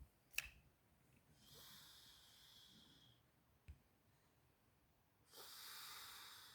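A sleeping man snoring softly: two long, hissing breaths, the second one near the end louder. A sharp click sounds just after the start.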